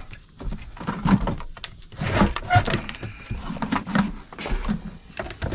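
Assorted small objects being picked up, shifted and knocked together while someone rummages through a pile of junk: irregular clicks, clacks and knocks with rustling between them.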